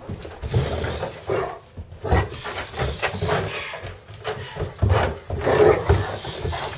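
Harlequin Great Dane play-growling in rough, irregular bursts while lunging at an electric screwdriver, with a few low thumps mixed in.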